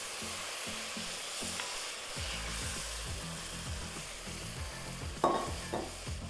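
Tamarind-and-spice curry paste sizzling in a hot wok as a spoon stirs through it, with a sharp knock about five seconds in.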